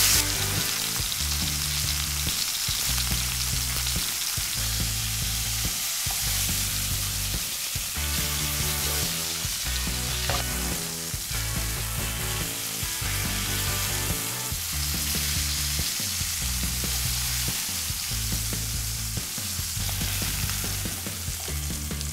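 Two thick entrecote steaks sizzling as they sear in very hot oil in a frying pan, with background music and a steady, repeating bass line underneath.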